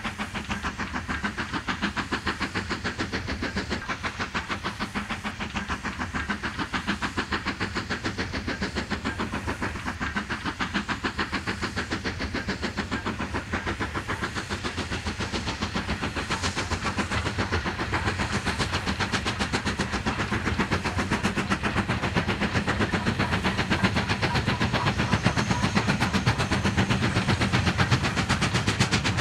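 GWR Manor class 4-6-0 steam locomotive working a passenger train, its exhaust beating in a rapid, even chuff with steam hiss, growing louder in the second half.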